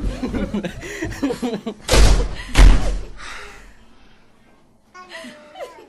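Two heavy thumps close together, about two seconds in and half a second apart, with low voices and a little laughter around them.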